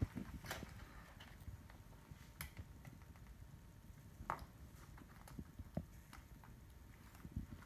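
Bengal cat's claws and paws tapping and scuffling on a hard wood-look floor as it wrestles and kicks a small toy bunny: scattered soft taps and clicks at uneven intervals, the sharpest about four seconds in.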